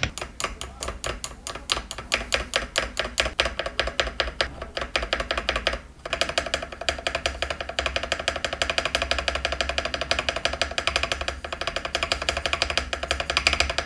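Mechanical keyboard spacebar on Costar stabilizers pressed over and over in quick succession: a dense run of clacks, with a brief break about six seconds in. The stabilizers are lubed and have tape under the wire, and the presses carry no ticking or rattle. Background music plays underneath.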